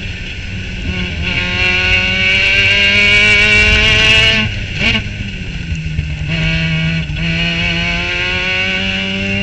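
Formula Mazda race car's rotary engine at high revs, heard onboard. Its pitch climbs, breaks and drops at gear changes about four and a half and seven seconds in, then rises again.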